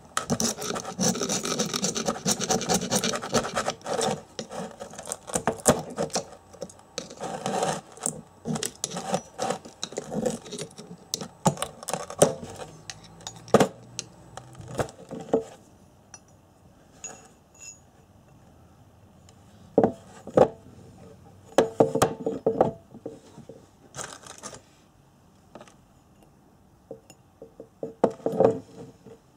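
A flat steel blade scraping old copper winding and insulation off the field-coil core of a motorcycle alternator rotor: continuous rasping scrapes with sharp clicks for the first half. Later come only a few short separate bursts of scraping and knocking.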